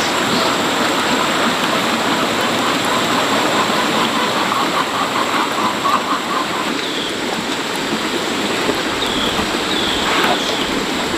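A steady, loud hissing rush of noise, with a few short high chirps in the second half.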